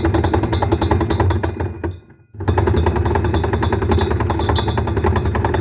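LG washing machine running its wash action with a loud, rough, rapid klotok-klotok clattering over a steady motor hum, the rough washing noise that is its fault. It stops briefly about two seconds in, then starts again.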